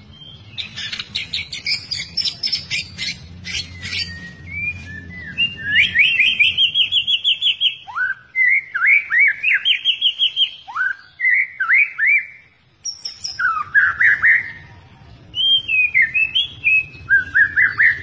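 Albino white-rumped shama (murai batu) singing a long, varied song: a fast rattling trill, then rapid repeated notes and rising swooping whistles, with a brief pause about two-thirds of the way through.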